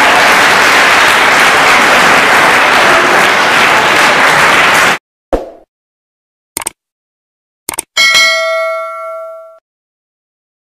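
Audience applauding, cut off abruptly about five seconds in. Then silence broken by three short clicks and a single bell-like ding that rings and fades for about a second and a half before stopping short.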